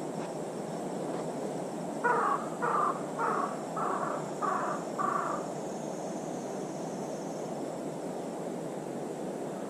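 An animal calling six times in a quick, even series, about two calls every second, over a steady background noise.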